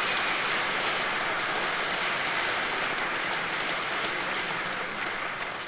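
Audience applauding: a steady wash of clapping that begins to die away near the end.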